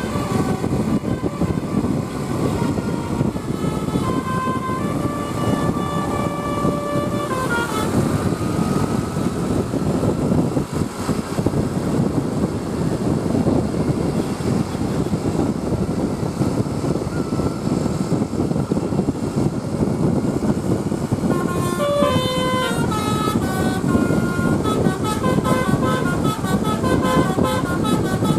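Bus 'telolet' musical horn of the Basuri type playing quick tunes of stepped notes. It plays near the start and again from about 22 seconds in, with a fainter held tone between, over steady engine and road rumble.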